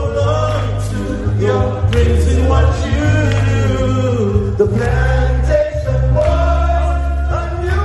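Male singers performing a song live together, their voices carrying a melody over a heavy bass backing track.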